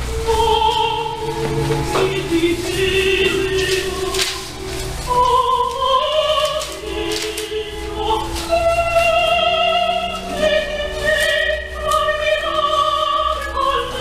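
Classical music with operatic singing: slow, held notes with wide vibrato, several pitches sounding together and moving to a new note about once a second.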